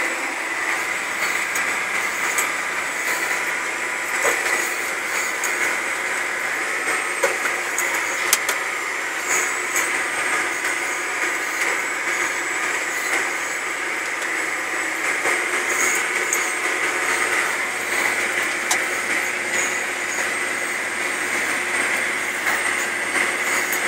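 Tractor running under load while pulling a Degelman Pro-Till disc, heard from inside the cab: a steady drone with a thin high whine, and now and then a short click or knock.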